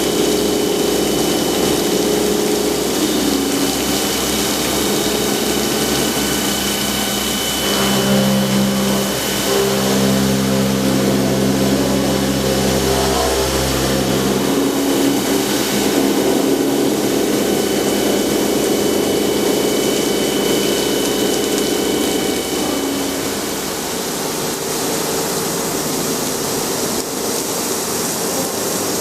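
Omag Blade5 CNC stone-cutting saw running, its motors humming steadily over a constant hiss, with the hum changing pitch in steps a few times as the machine moves.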